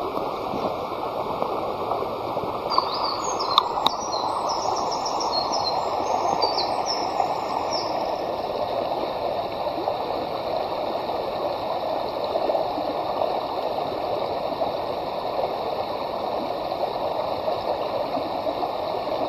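Steady rushing of running water, like a stream, with a few short high bird chirps about three to eight seconds in.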